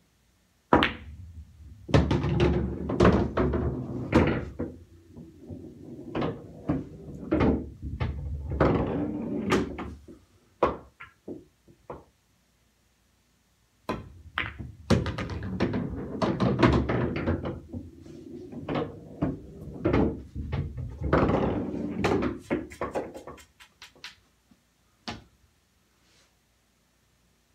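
Pool balls on a bar-box pool table: two shots, each a sharp cue-ball click followed by balls clacking together, dropping into pockets and rolling and knocking on for several seconds. A lone click near the end.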